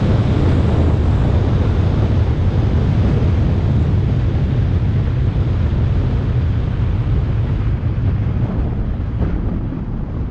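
Wind rushing over a microphone mounted on the hood of a Lamborghini Huracán as the car slows from about 85 to 35 mph, with road and engine noise beneath. The low rumble eases gradually as the speed drops.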